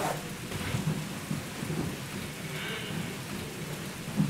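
Thunderstorm sound effect played over a stage's sound system: steady rain with a low rumble of thunder.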